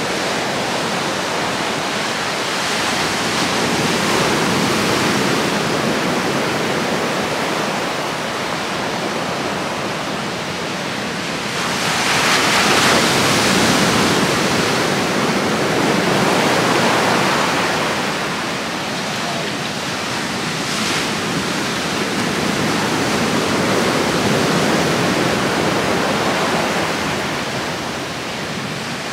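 Sea surf washing onto the beach: a steady rush of breaking waves that swells louder several times, most strongly about twelve seconds in.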